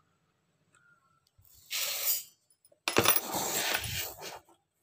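Dry uncooked rice grains hissing and rattling against a steel tumbler and bowl as they are scooped and poured. The pour comes twice: a short one, then a longer one that starts with a knock.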